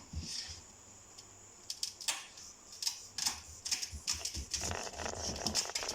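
Knife cutting a lemon: irregular sharp knocks of the blade, starting about two seconds in, with a scraping rustle near the end.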